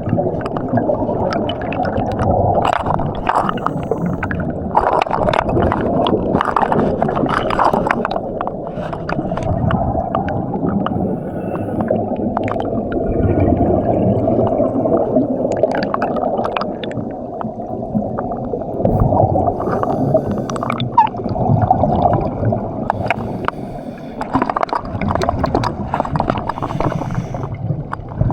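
Sea water gurgling and sloshing continuously, with many scattered sharp clicks and pops.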